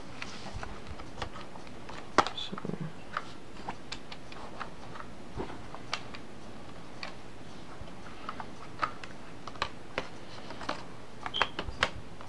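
Scattered plastic clicks and knocks as a removable laptop battery pack is handled and fitted into the laptop's battery bay, with the sharpest click about two seconds in and a quick run of clicks near the end.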